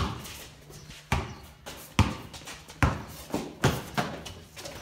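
A basketball being dribbled on a hard floor inside a corrugated-iron shed, a steady run of about six sharp bounces a little under a second apart, each with a short echoing tail.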